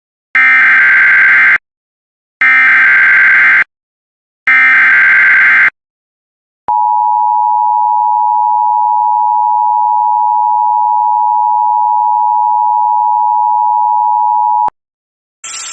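Emergency Alert System header: three loud bursts of SAME digital data tones, each about a second long with short gaps between them, followed by the EAS attention signal, a steady two-note tone near 1 kHz that holds for about eight seconds and cuts off abruptly.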